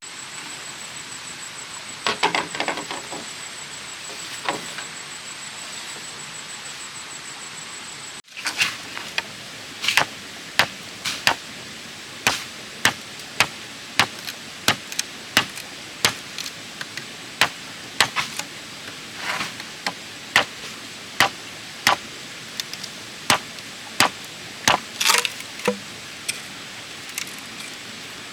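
Tool striking bamboo: a few scattered knocks over a steady high-pitched tone, then, about a third of the way in, a long run of sharp, regular strikes at somewhat more than one a second.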